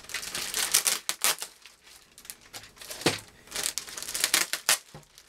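Clear plastic bag crinkling and rustling in irregular bursts as it is pulled open and worked off a model airplane's fuselage, with a quieter stretch about two seconds in.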